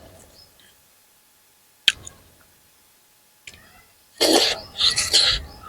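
Close-up mouth sounds of a person eating: two sharp smacks about two seconds apart, then a loud breathy burst of just over a second in three or four pulses.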